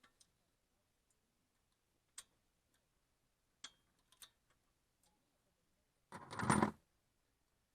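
Scattered light clicks of small metal engine parts being handled as the rocker arms come off, then a short, louder rattle about six seconds in.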